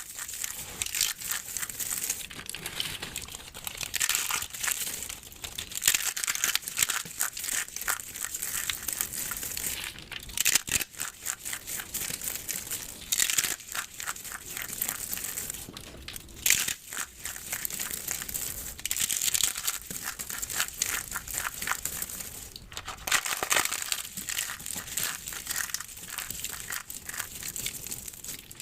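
Soap being crushed by hand: a dense, continuous run of crisp crackles and crunches.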